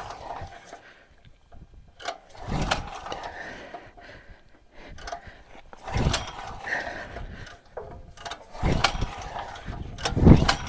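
Recoil pull cord of a Champion 3500 portable generator yanked four times, the engine spinning over briefly on each pull but never catching. It fails to start, and the owner suspects it is getting no spark.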